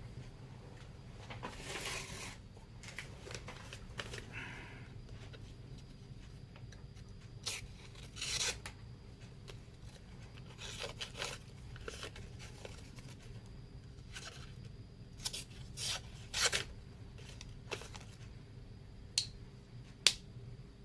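Scattered short scraping and rubbing strokes from a Victorinox Spartan Swiss Army knife being worked by hand, with a few sharp clicks, the loudest near the end.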